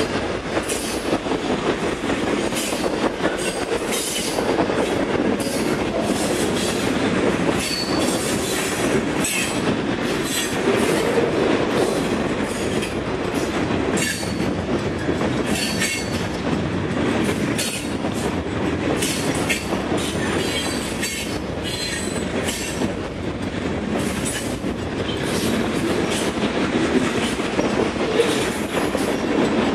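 Freight cars of a CN freight train rolling past: a steady rumble and clatter of steel wheels on the rails, with brief high wheel squeals now and then.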